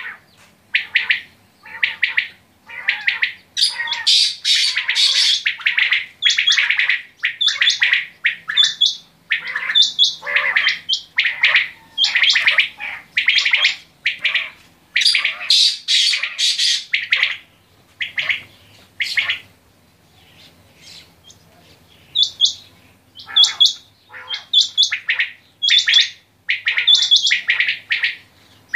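Several caged common quails calling over and over, short sharp calls repeated in quick series and overlapping from bird to bird, with a lull of a few seconds about two-thirds of the way through.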